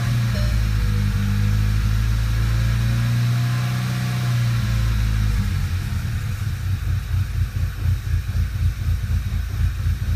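Volkswagen GTI's 2.0 TSI turbocharged four-cylinder engine idling; about halfway through it turns rough and uneven, the loudness jumping up and down, the sign of cylinder misfires.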